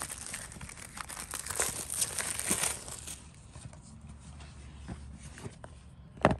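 Plastic wrapping on a cardboard camera box crinkling and tearing as it is pulled off, for about three seconds, then fainter rustles and taps as the box is handled, with one sharp knock near the end.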